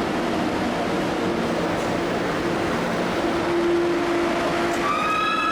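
Passenger train's steady running hum with a low drone, heard from on board. Near the end a high, slightly rising whine sets in abruptly.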